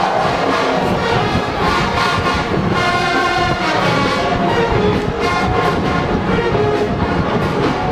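Marching band playing: brass horns sounding held chords over a steady beat from the drums.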